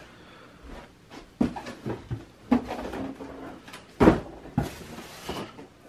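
Cardboard sneaker boxes being handled and set down: about five sharp knocks, the loudest about four seconds in, then a short rustle.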